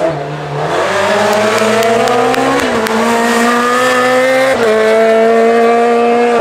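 Renault Clio R3C rally car's two-litre four-cylinder engine accelerating hard out of a hairpin. Its pitch climbs, drops at an upshift about two and a half seconds in, climbs again and drops at a second upshift about four and a half seconds in.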